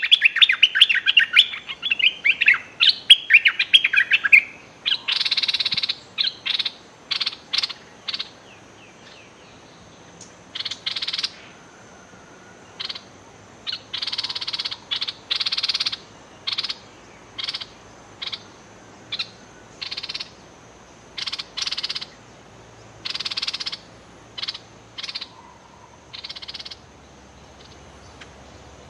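Bulbuls calling at a decoy cage: a fast, warbling song-burst for the first four seconds, then a long run of short, harsh, raspy threat calls, irregularly spaced and stopping a couple of seconds before the end. A faint steady high tone runs underneath.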